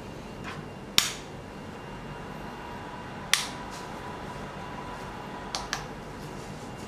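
Rocker switches on an LED light bar's control box clicking as they are pressed: one click about a second in, another a couple of seconds later, and two quick clicks near the end, each switching the amber flash pattern on or over.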